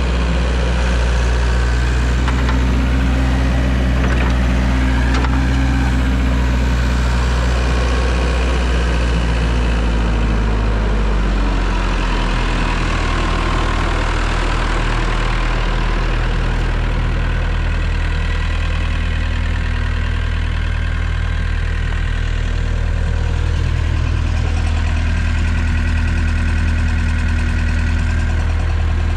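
1996 Scat Trak 1700CX wheeled skid steer's engine running steadily. Its note drops slightly about eleven seconds in, then settles.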